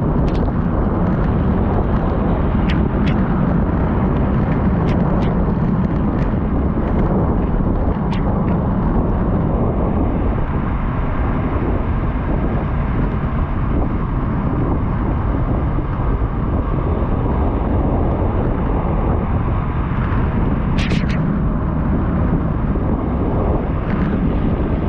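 Steady, loud rumble of wind buffeting the microphone on a moving bike. A few sharp clicks come in the first eight seconds, and a pair about twenty-one seconds in.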